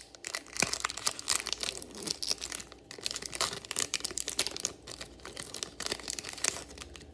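Foil wrapper of an Upper Deck hockey-card retail pack crinkling and tearing as it is pulled open by hand: a run of irregular crackles that stops near the end.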